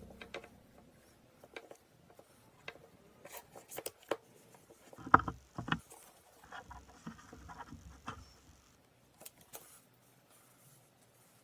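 Hands handling sequined tulle fabric around a plastic fashion doll: quiet rustling with scattered small clicks and taps, the loudest a few about five seconds in.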